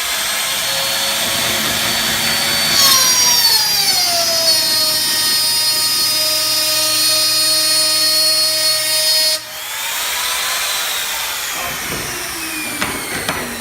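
Bench power tool's electric motor whining while a strip of wood is fed through it to cut a groove. About three seconds in, its pitch drops as the cutter bites into the wood, and it runs steadily under load until a sudden break near the middle. The pitch then rises and sinks again.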